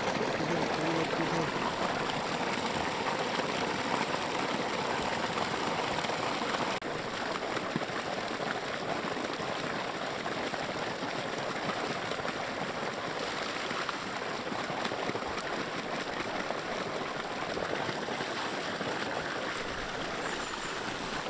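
Water gushing steadily from an irrigation pipe outlet into a flooded rice paddy, with splashing as things are rinsed in the stream. It drops a little in level about seven seconds in.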